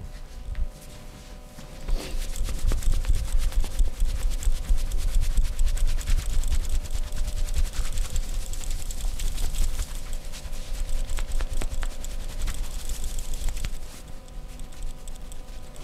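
Rapid percussive massage strokes on the body, a fast run of slaps and taps with dull low thuds, starting about two seconds in and dropping off near the end.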